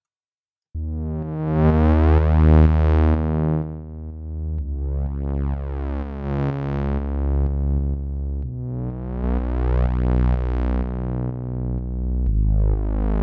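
Synth bass from Ableton's Analog software synthesizer, run through Ableton's Saturator to make it bigger and warmer. It plays four long sustained notes of about four seconds each, starting after a brief silence. Each note's tone brightens and then darkens again as a filter sweeps open and closed.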